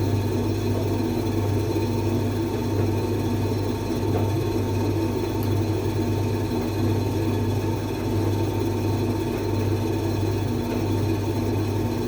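Creda 37761 appliance running with a steady hum and whir, with no change or pause: the noise problem its owner wants fixed.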